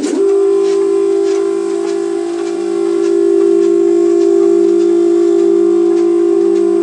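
Stepper motors of a DIY wooden CNC router driving an axis at constant speed, giving a steady whining tone with overtones, after a quick change in pitch right at the start.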